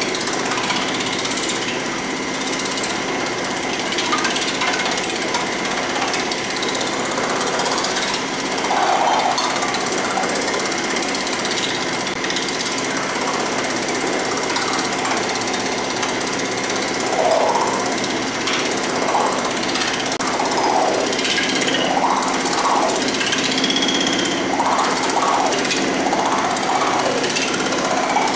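P-Max Pullmax-style reciprocating power hammer running, its upper die hammering rapidly on a sheet-metal panel worked between round-faced dies. The sound is a fast, steady mechanical clatter with a constant high whine. In the second half a ringing tone rises and falls about once a second.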